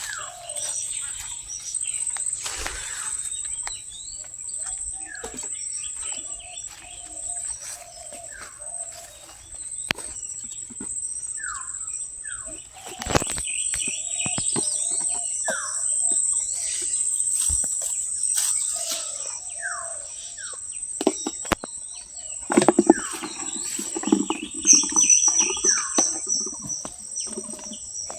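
Outdoor ambience of birds calling, with short falling whistled notes repeated every second or two over a steady high-pitched insect drone. Scattered sharp clicks come through it, and near the end a lower pulsing call and a fast high trill join in.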